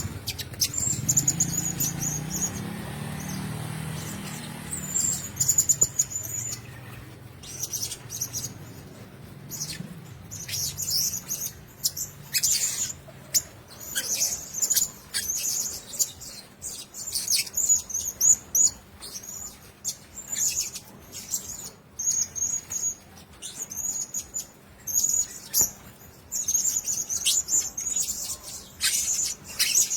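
Blue-crowned hanging parrots chirping: short, very high-pitched squeaky calls in quick runs throughout, with brief gaps between runs.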